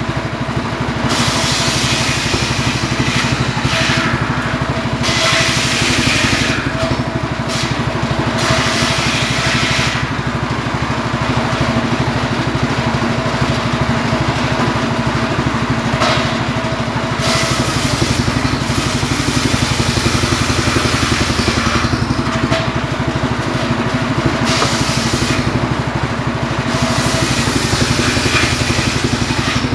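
Homemade table circular saw ripping firewood logs lengthwise, over the steady running of the engine that drives it. Spells of hissing cutting noise come and go as the blade bites into the wood and the log is pushed through.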